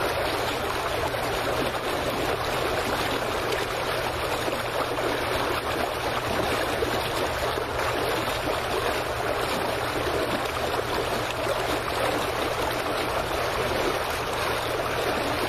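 Water lapping and splashing against a dock just below the microphone: a steady, even wash.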